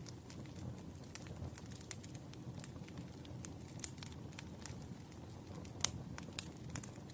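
Wood fire crackling: irregular sharp pops and snaps of burning logs over a low steady rumble, with a few louder pops near the end.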